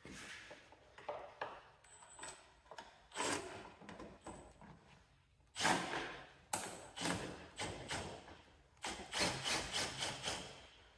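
Irregular knocks, scrapes and rattles of sheet-metal panels and parts being handled and pushed into place on a lawn tractor, in clusters with short gaps between.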